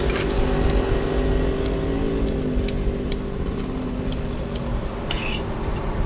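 Steady low hum of a motor vehicle engine running nearby, its tone easing off about halfway through, with light clinks of forks and spoons on plates now and then.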